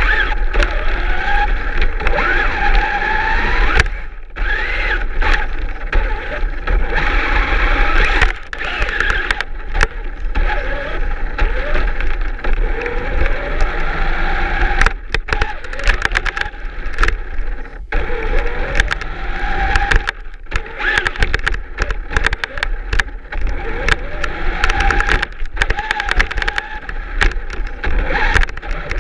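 Traxxas Slash 4x4 RC truck's electric motor and gears whining, rising and falling in pitch with the throttle, over a rough scraping as its cardboard plow pushes snow. The whine drops out briefly several times and picks up again.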